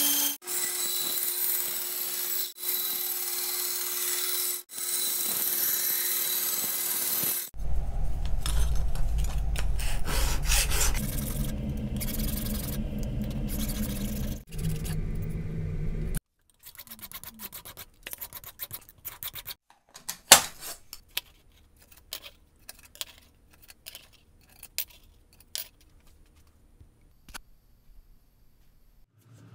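A Porter-Cable band saw cutting through a metal license plate, a steady hiss with a faint hum, for about seven and a half seconds. Then a hand file rasps back and forth along the cut plate edge until about the halfway point. After that come scattered light clicks and taps as the thin metal plate strips are handled and set down on a wooden bench.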